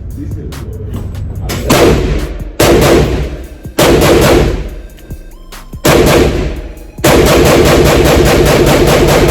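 An AK-pattern pistol in 7.62x39 firing: four heavy, spaced shots with echoing tails, then about seven seconds in a fast, unbroken string of rapid fire. Background music plays underneath.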